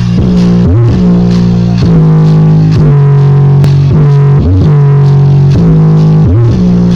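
Loud, bass-heavy music with guitar played through a sound system's new 15-inch speaker box during a sound check. Strong held bass notes change pitch about every second, with short sliding notes between them.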